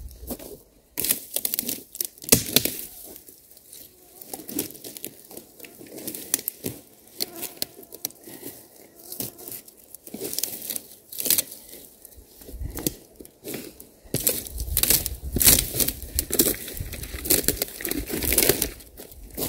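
Dry dead pine branches snapping, cracking and rustling as they are broken and pulled out of a pile by hand. It is a dense run of sharp snaps that gets busiest and loudest in the last few seconds.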